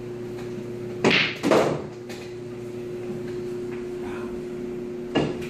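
Pool balls clacking during a shot: two sharp knocks about a second in, close together, and another near the end, over a steady hum.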